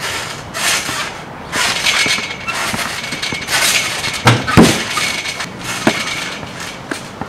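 Trampoline springs creaking and jingling under the players' bounces, a burst about once a second. One heavier thump comes about four and a half seconds in.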